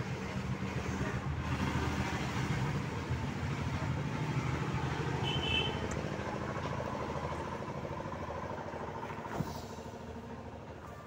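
A motor vehicle engine running nearby, a steady low rumble that swells over the first few seconds and slowly fades away, with a single click near the end.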